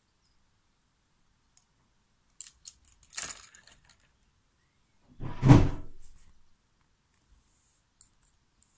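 Nail art brushes clicking and clattering against each other as they are handled and sorted, in scattered short clicks, with one louder thump about five and a half seconds in.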